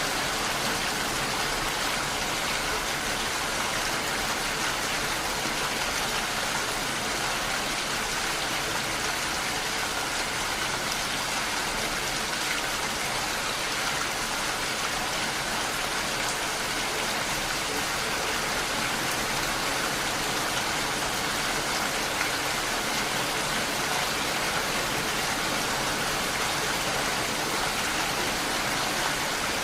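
Steady rain, drops striking window glass in an even, unbroken hiss.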